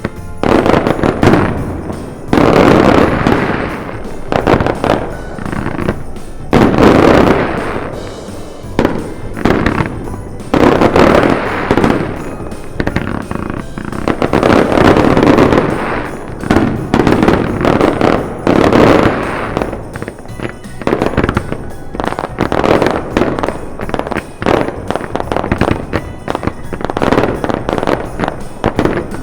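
Aerial fireworks going off in rapid succession: many sharp bangs and crackling bursts that swell and fade in loud waves, with music playing alongside.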